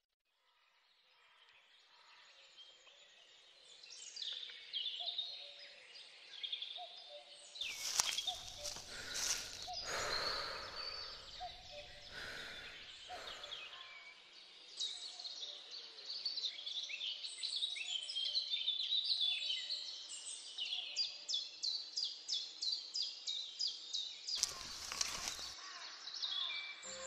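Birdsong fading in from silence: several birds chirping and calling, with a quick run of repeated chirps, about two a second, in the last few seconds. Two bursts of noise break in, one about eight seconds in that lasts a couple of seconds, and a shorter one near the end.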